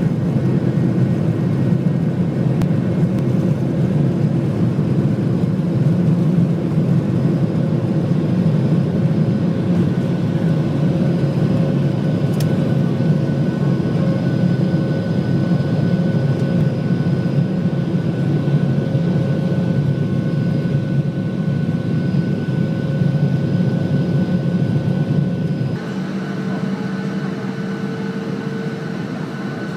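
Airliner cabin noise: a steady, loud rumble of engines and air, with faint steady hum tones. About 26 seconds in, the level drops a little and the hum changes pitch.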